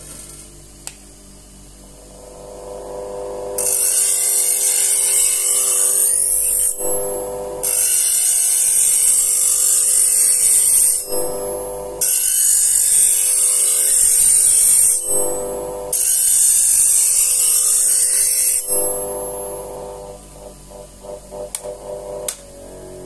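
Knife edge ground on a 1000-grit CBN wheel on a bench grinder running at full speed, the wheel dressed with honing coolant. Four grinding passes of about three seconds each give a loud high hiss over the steady hum of the grinder motor, with short pauses between them. A few light clicks come near the end.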